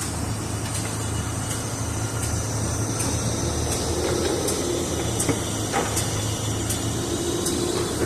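Mini excavator's diesel engine running steadily while digging, with a higher hydraulic-sounding whine rising over it twice in the second half.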